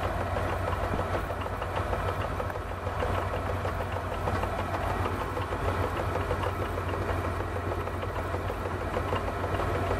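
Small metal lathe running steadily with a low hum as it drills and counterbores mounting holes in a cast aluminium bracket.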